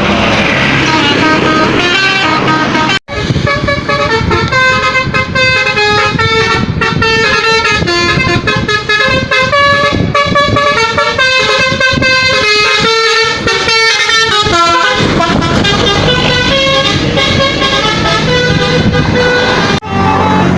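Basuri 'telolet' bus horn, the multi-tone melody horn fitted to Indonesian buses, playing quick tunes of short notes that hop rapidly between pitches, with vehicle noise underneath. A brief break about three seconds in.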